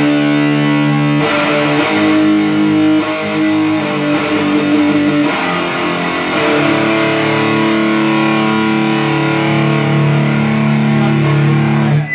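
Electric guitar played through fuzz and distortion into an Orange amp: a slow, heavy doom riff of long held chords that change every second or two, cut off suddenly at the very end.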